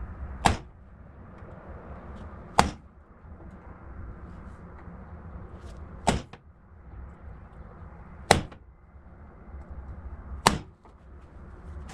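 Hammer striking a punch held against a steel plate: five sharp blows about two seconds apart.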